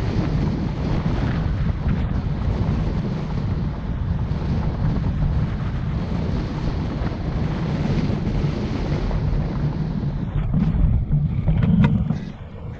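Wind buffeting the microphone of a camera on a moving car, over a steady low rumble of road noise. Near the end it swells briefly, with a few knocks, then drops.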